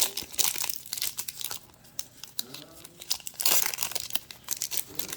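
Crinkling cellophane wrapper of a trading-card pack being handled, with irregular rustles and crackles. It is loudest just after the start and again about three and a half seconds in.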